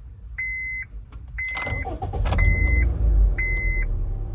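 Honda Jazz engine cranked by the starter about one and a half seconds in, catching and running with a low rumble, just after a battery replacement. Through it a car's warning chime beeps about once a second.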